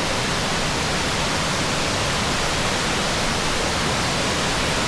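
Steady, even rush of water from High Shoals Falls, a tall plunge waterfall.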